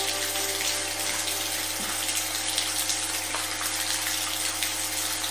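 Steady rain hiss with sustained low tones held underneath: a sound-therapy frequency drone mixed with recorded rain.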